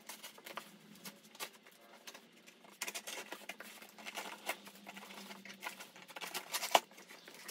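Cardboard shipping box being cut and opened at the top, sped up: a fast, scratchy crackle of packing tape and clear plastic being slit and peeled, with a few sharper snaps.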